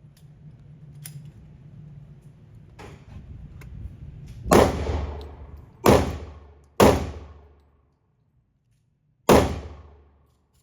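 Handgun fired four times at an indoor range: three shots inside about two and a half seconds, then a fourth after a pause of about two and a half seconds. Each bang is followed by a short echoing decay off the range walls, and fainter pops come earlier.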